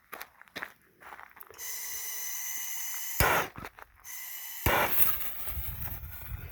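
Fuse of a 4-inch canister firework shell hissing for about a second and a half, then a sharp crack. A second, louder blast comes near the five-second mark, followed by a lingering low rumble.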